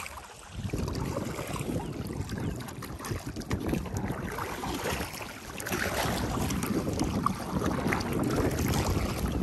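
Wind buffeting the microphone over water slapping and splashing against a paddle board as it is paddled through choppy water.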